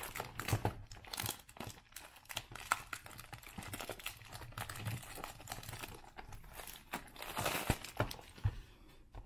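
Plastic shrink wrap being torn and peeled off a cardboard trading-card box, crinkling and crackling irregularly, loudest about seven and a half seconds in.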